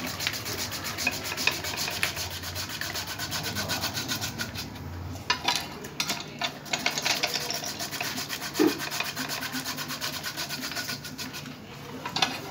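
Hand-cranked potato chips machine: its rotating disc blade is shaving raw potatoes into thin wafers with a fast, even rasping scrape, broken briefly near the middle.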